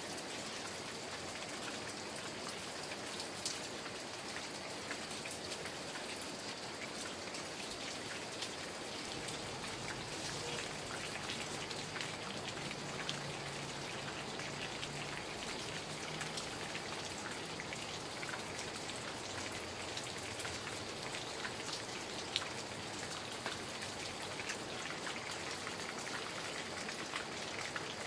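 Steady rain pattering on forest foliage, a dense hiss of many small drops with a few sharper ticks.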